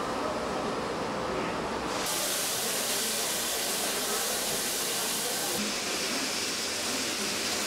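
Train noise at first, then from about two seconds in a loud, steady hiss of steam escaping from a standing steam locomotive. The hiss grows sharper and brighter near the end.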